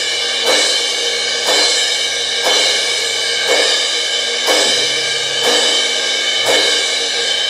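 A drum-kit cymbal struck about once a second, each hit ringing on into the next, played to soundcheck the second overhead microphone.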